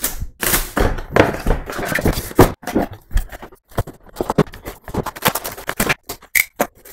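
Packaging being cut open and handled: a box cutter slicing plastic shrink-wrap and wrapping, with cardboard and plastic scraping and crinkling in quick, irregular bursts.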